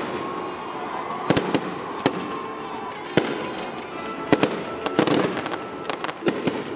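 Aerial fireworks bursting: sharp bangs about once a second, some coming in quick clusters, over a steady background rumble.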